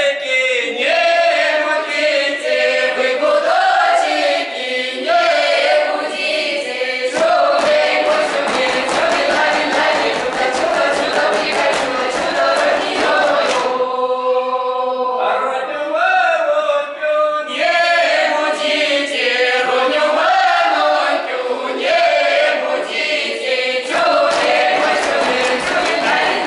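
Folk ensemble of mixed male and female voices singing an unaccompanied Russian round-dance (khorovod) song in chorus. About fourteen seconds in, the voices hold one long chord before the melody moves on.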